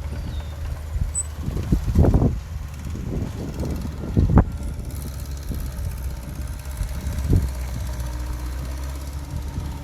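Heavy diesel engine of earthmoving machinery running steadily, with a few brief louder spikes about two and four and a half seconds in.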